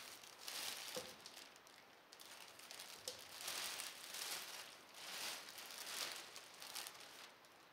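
A large plastic bag rustling and crinkling as it is pulled open and handled, in several uneven swells with a couple of small clicks.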